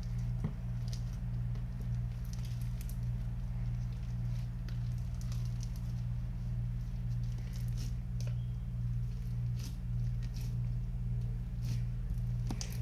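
Rice slime being squished and worked by hand, giving scattered small sticky clicks and crackles over a steady low hum.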